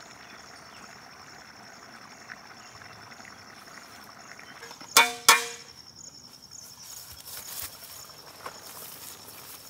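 A large iron cooking pot clanks twice, sharp and loud, about five seconds in, the second clank ringing briefly, as it is lifted off a brick hearth. Under it runs a steady high insect trill.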